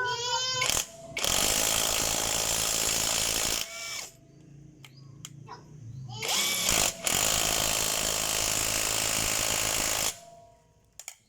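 Cordless impact wrench hammering on a car wheel nut in two runs of about three seconds each.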